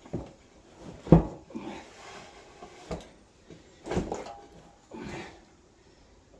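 A handful of knocks and clunks, about five, the loudest about a second in, from the fuel tank and its bracket being handled and fitted.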